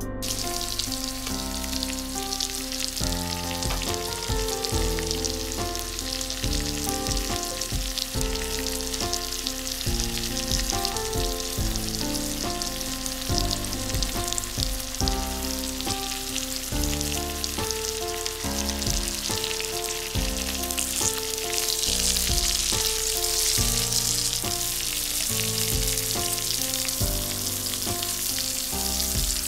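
Sausages sizzling and spitting in hot fat in a frying pan, the sizzle louder about two-thirds of the way through. Soft background music plays underneath.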